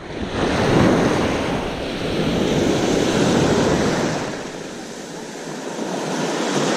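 Shallow surf breaking and washing in around the feet over a rocky shore, rising and falling with each wave, with wind buffeting the microphone.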